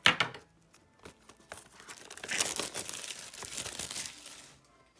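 Plastic wrapping crinkling and tearing as a trading card box or pack is opened, with a sharp click at the start.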